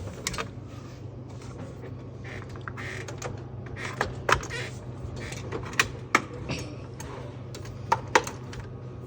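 Sharp clicks and knocks of plastic and metal parts of a vending machine's coin mechanism being handled and snapped into place, with some brief scraping, over a steady low hum.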